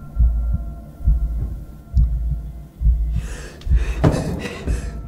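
A low heartbeat sound effect beating in a lub-dub rhythm about once a second. From about three seconds in, a frightened woman's quick, breathy gasps join it.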